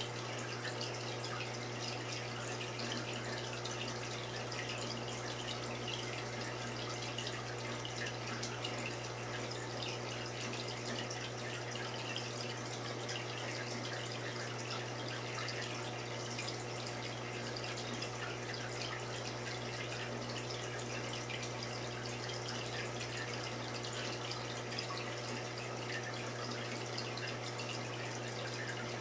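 Reef aquarium water circulating: a continuous trickling, dripping splash of water with a steady low pump hum underneath.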